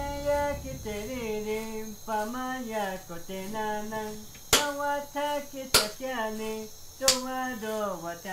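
A single voice singing a slow, wavering chant-like melody of held notes with slides between them, over a steady high insect trill. About four and a half seconds in, four sharp strikes come roughly every second and a quarter.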